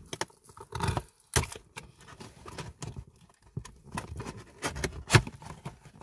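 Cardboard box being opened by hand: packing tape picked and peeled, flaps and packaging scratched, rustled and tapped in irregular clicks, with a sharper knock about five seconds in.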